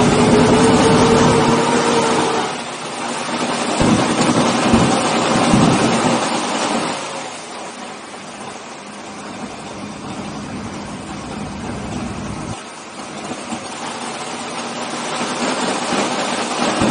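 Pulling truck's engine heard from inside its stripped cab, held at raised revs for the first couple of seconds with a slowly rising pitch, then a few louder throttle blips, before settling to a lower, quieter idle.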